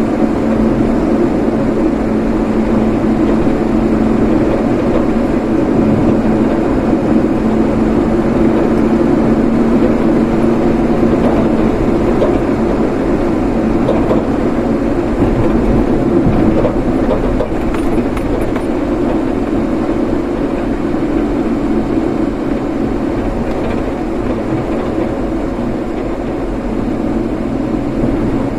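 A vehicle on the move: steady engine and road noise, continuous at an even level.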